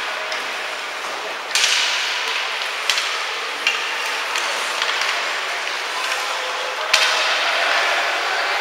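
Ice hockey play on a rink: skate blades scraping the ice under a steady hiss, with sharp clacks of sticks and puck four times, the loudest about a second and a half in and near seven seconds.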